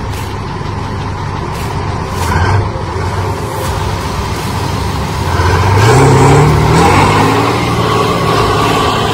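Heavy diesel engine of a large wheeled tractor labouring in mud. It runs under load, then revs up with a rising pitch about five and a half seconds in, is loudest around six to seven seconds, and settles back.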